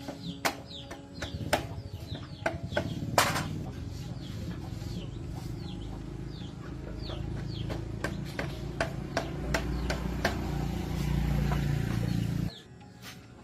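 Birds chirping in short falling calls, several a second, over a low steady rumble and scattered sharp clicks and taps. The sound cuts off abruptly about a second before the end.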